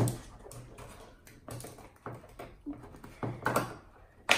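Small plastic glitter container being handled and its lid worked open: a few short, sharp clicks and taps, the sharpest near the end.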